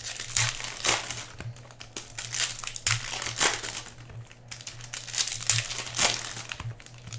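Foil wrappers of Upper Deck hockey card packs crinkling and being torn open by hand, in irregular bursts of crackle.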